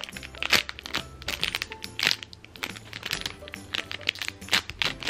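Thin clear plastic bag crinkling and crackling in irregular sharp bursts as the small foam squishy toy sealed inside is squeezed by hand, over soft background music.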